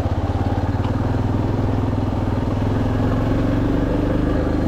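Yamaha Lander XTZ 250's single-cylinder four-stroke engine running steadily at low revs, with an even pulsing beat and no change in pitch.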